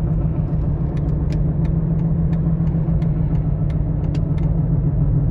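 Steady low rumble of a car waiting at a traffic light, with a quick, uneven run of light clicks through the middle.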